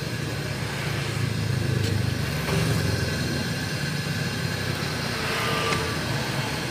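Road traffic going past: a steady rumble of cars and motorcycles.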